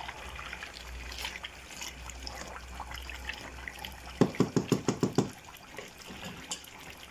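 Wooden spoon stirring a wet stew in a metal pot, with squelching, liquid sounds. A little past halfway the spoon knocks on the pot about eight times in quick succession, the loudest sound.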